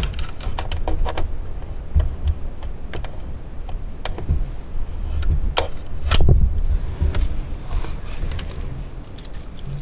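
Small plastic sewing-machine accessories being rummaged through and handled: scattered clicks, taps and rustles, with a few sharper knocks.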